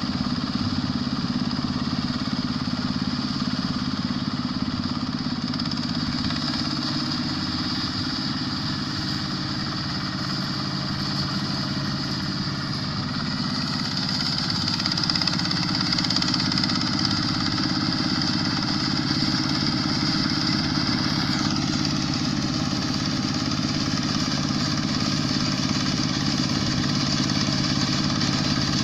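Combine harvester's Kubota diesel engine running steadily, with a higher mechanical whine above it that drops in pitch a little over two-thirds of the way through.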